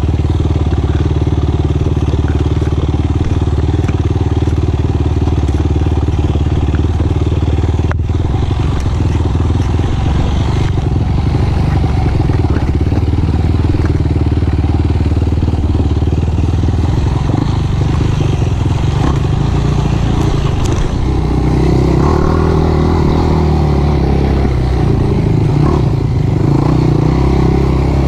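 Single-cylinder four-stroke sport quad engine running under way on a trail, holding a steady note for the first half and then changing pitch with throttle from a little past halfway, with some clatter from the ride.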